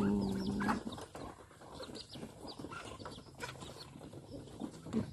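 Free-range poultry feeding: many short, high chick peeps and scattered sharp clicks of pecking. A loud, long call with a steady pitch fades out during the first second.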